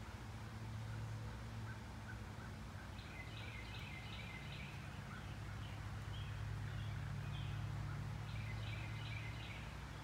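Birds chirping in two bursts of quick high notes, about three seconds in and again near the end, over a steady low hum.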